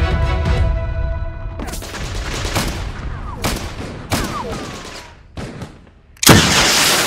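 Battle sound effects: scattered gunshots and bursts of gunfire with a few short falling whistles, while background music fades out in the first second or so. Near the end a sudden loud blast with a rushing hiss, the firing of a Panzerfaust anti-tank launcher.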